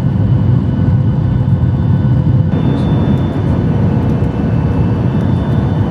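Loud, steady low rumble of an airliner's engines and airflow, as heard inside the passenger cabin.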